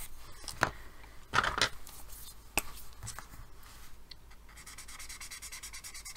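A few sharp taps and clicks as a coloured pencil is put down and a colour-pencil blender is picked up. From about four and a half seconds in comes the soft, steady, scratchy rubbing of the blender worked over pencil colour on paper.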